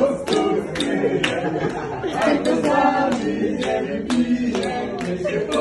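A group of people singing together, with hand claps in time at about three a second.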